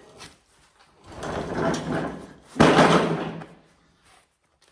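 Handling noises from working on equipment: a scraping rustle, then about two and a half seconds in a sudden louder clunk and scrape that dies away within a second.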